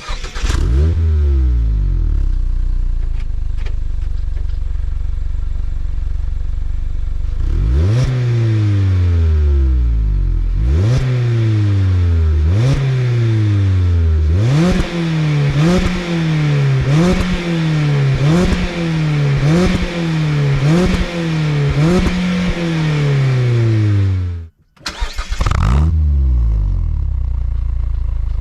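A 2022 Mazda MX-5's 2.0-litre four-cylinder, breathing through a new Friedrich Motorsport Group A cat-back exhaust, starts and idles. It is then blipped on the throttle, a few spaced revs at first and then about one rev a second. Near the end it is switched off and restarted, settling back to idle.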